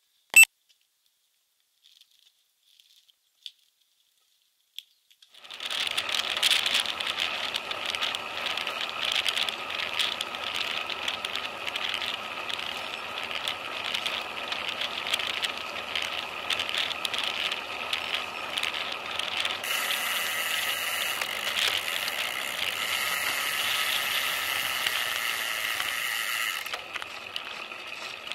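Road bike in motion, heard through its handlebar-mounted camera: a continuous clicking rattle from the bike and the camera mount on the road. It starts about five seconds in, after a near-silent pause with one sharp click, and eases a little near the end.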